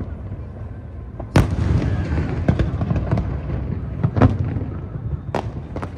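Aerial fireworks bursting: a run of sharp bangs over a steady low rumble. The loudest bang comes about a second and a half in and leaves a long rumbling echo.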